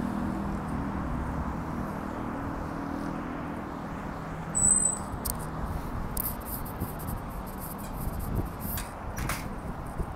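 Steady road traffic noise, with a vehicle's low hum fading out over the first few seconds. A short high-pitched beep comes about four and a half seconds in, and scattered light clicks follow in the second half.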